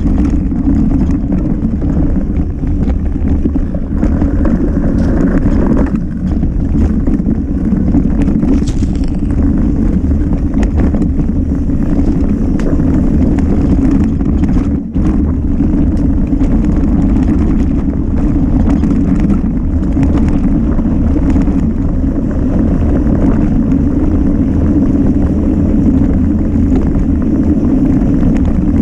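Mountain bike descending fast on a rough forest trail: a loud, steady rumble of wind buffeting the camera microphone mixed with the tyres and bike rattling over the ground, with a brief dip near the middle.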